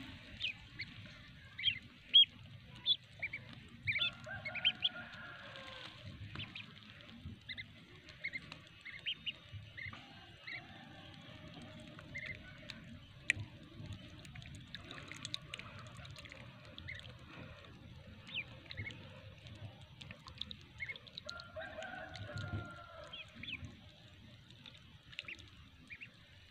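Ducklings peeping, many short high chirps scattered throughout. Twice, about four seconds in and again near the end, a hen gives a longer, lower clucking call.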